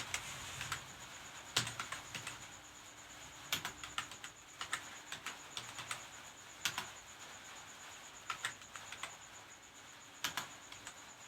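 Computer keyboard keys being typed on in short, uneven runs of clicks with pauses between them, over a faint steady high-pitched whine.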